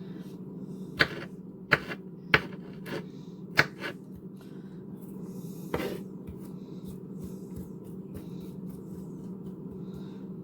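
Kitchen knife knocking on a cutting board while dicing a red onion: about five sharp, irregular knocks in the first six seconds, over a steady low hum.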